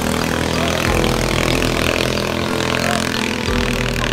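Small racing flat boat's engine running hard as the boat speeds across the river, its pitch shifting about a second in and again near the end.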